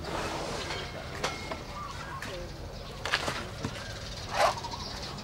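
Elephants feeding on corn cobs and leafy stalks: scattered crunches and rustles, with one louder short sound near the end.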